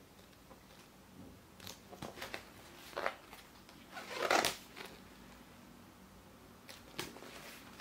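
Pages of an illustrated children's book being turned and handled: a handful of short papery rustles, the loudest about four seconds in.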